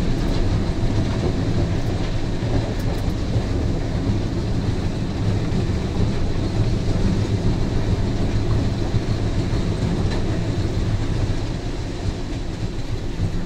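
Albach Diamant 2000 wood chipper running under load as it chips a grapple bundle of softwood logs: a dense, steady mechanical rumble heard from the operator's cab. It eases slightly in level near the end.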